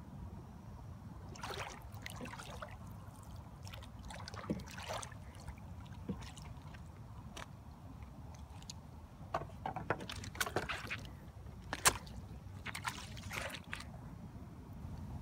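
Water lapping and splashing lightly around a model RC yacht, in small irregular sloshes over a steady low rumble, with one sharp tick near the end.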